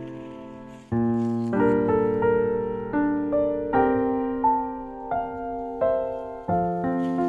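Background piano music: a held chord fading away, then a slow melody of struck notes, about one or two a second, each ringing and fading.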